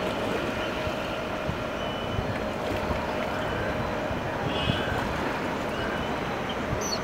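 Open-air ambience from a moving shikara on the lake: a steady wash of noise with wind rumbling on the microphone. A few faint, brief high tones come through about two seconds in and again past the middle.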